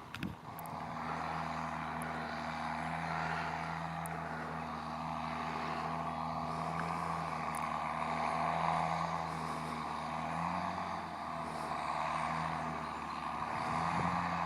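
John Deere 6810 tractor's six-cylinder diesel engine running steadily while pulling a three-furrow plough, its note shifting slightly about ten seconds in.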